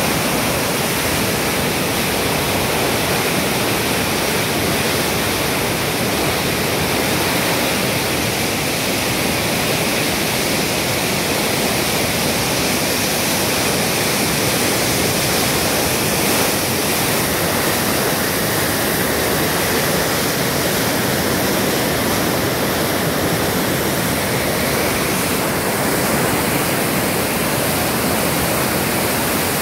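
Monsoon-flooded river rushing through rapids: a loud, steady wash of turbulent muddy water.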